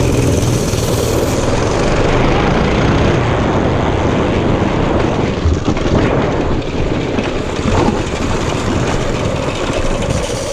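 A Baja mini bike's 208cc, 6.5 hp single-cylinder four-stroke engine running loud and steady.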